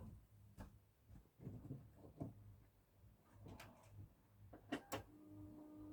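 Near silence with a few faint knocks and sharp clicks, then a low steady hum begins about five seconds in.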